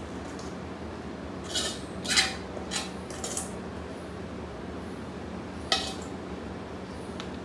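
Utensil scraping and clinking against the inside of a black wok as chicken pickle is scraped out into a plastic jar: a few scrapes about a second and a half in, then one sharp clink near the end.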